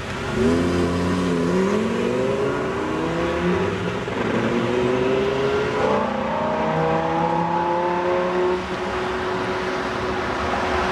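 Lamborghini Gallardo V10 accelerating hard up through the gears, its engine note rising with two upshifts: one about a second and a half in, the other about six seconds in. Near the end the revs settle into a steady tone.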